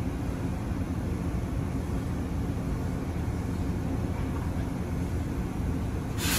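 Izu Kyuko 2100 series 'Resort 21' electric train standing at the platform, its onboard equipment giving a steady low hum and rumble. Near the end a sudden, sharp hiss of air starts up.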